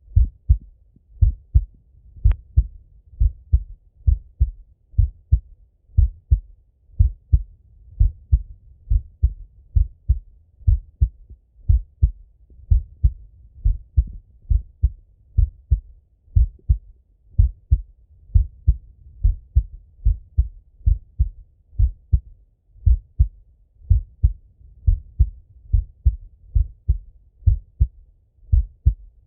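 Adult male heartbeat heard through a stethoscope pressed to the chest: a slow, steady rhythm of paired low thumps (lub-dub).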